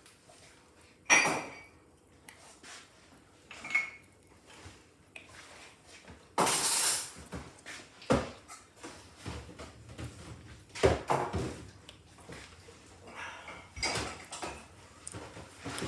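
Crockery and cutlery clinking and clattering as dishes are handled at a dishwasher: separate knocks a few seconds apart, with a longer rattle about six seconds in.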